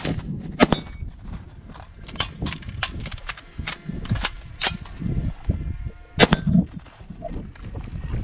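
Rifle shots fired in quick pairs, several double taps about a second or two apart, with steel targets ringing from the hits.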